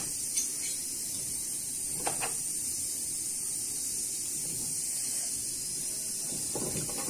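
Steady hiss of a pot of meat cooking on a gas stove, with a couple of faint clicks about half a second and two seconds in.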